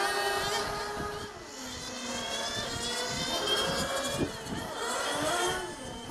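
Several 1/8-scale nitro RC GT cars' small two-stroke glow engines running at high revs on track, their pitches rising and falling as they accelerate, brake and pass one another.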